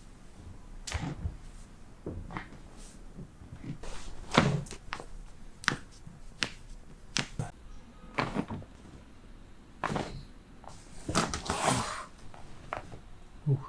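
Chiropractic neck adjustment: a string of sharp cracks and knocks, the loudest about four seconds in, with a longer crunching rustle near the end.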